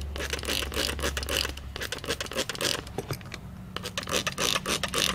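Hand spray bottle squirted over and over in short, irregular hissing spurts, leak-check spray being applied to the hose connections and T fitting of a pressurised leak tester.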